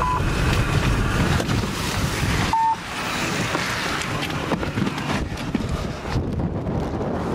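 Strong wind buffeting and rushing over the microphone, a steady noisy roar that eases in its lowest part about two and a half seconds in, with a short electronic beep near the start and another just before the change.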